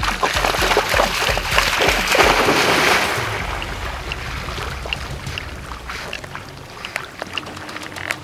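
A hunting dog swimming and splashing through shallow water, loudest for the first three seconds, then quieter lapping as it paddles on. A faint music beat runs underneath.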